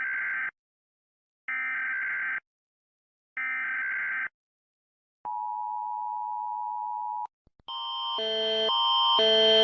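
Emergency Alert System–style broadcast alert: three one-second screeching bursts of digital data header, then a steady two-tone attention signal for about two seconds. Near the end a different electronic alarm of tones alternating about twice a second comes in and grows louder.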